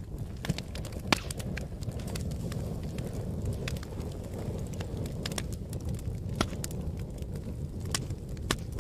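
Wood fire burning: a steady low rumble of flames with irregular sharp crackles and pops of burning wood, the sharpest about a second in.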